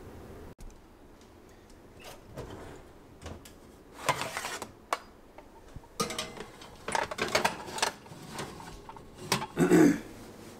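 Kitchen handling noise: a metal roasting pan of chicken clattering and scraping as it goes onto an oven rack, heard as several short bursts of clicks and clatter, the loudest near the end.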